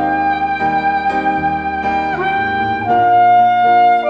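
Music: a melody of long held notes over sustained chords, moving to a new note every second or so, with no fireworks bangs heard.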